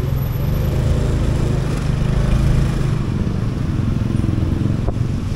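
Motorcycle engine running steadily while riding in city traffic, with road and traffic noise around it.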